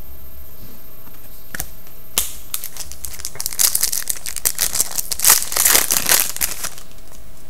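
A foil trading-card pack being torn open and crinkled by hand. There is one sharp crackle about two seconds in, then a dense run of foil crinkling and tearing that peaks past the middle and stops shortly before the end.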